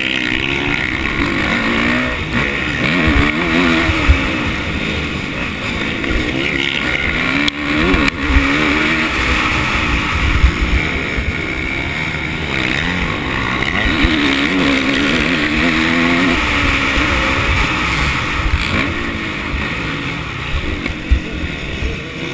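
Dirt bike engine heard from on board at full race pace, the revs climbing and dropping again and again through the corners and shifts, with wind rumbling on the microphone.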